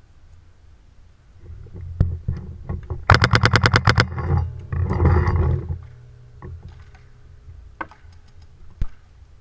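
Paintball marker firing a fast string of about a dozen shots in roughly a second, with a few single shots before and after it.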